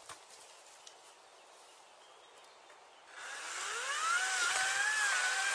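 Parkside cordless battery chainsaw switched on about three seconds in: its electric motor's high-pitched whine rises quickly in pitch, then holds with small dips.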